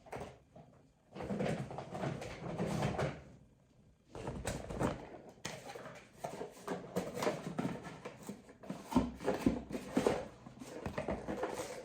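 Rustling and crinkling of product packaging as items are handled and set down, in uneven bursts with short pauses.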